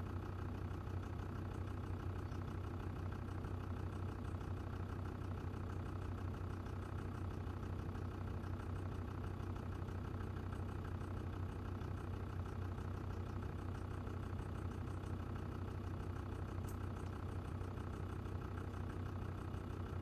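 Land Rover Defender TD5's five-cylinder turbodiesel idling steadily, heard from inside the cabin. The owner is trying to capture a rhythmic knock he hears there, which he puts down most likely to faulty hydraulic lifters.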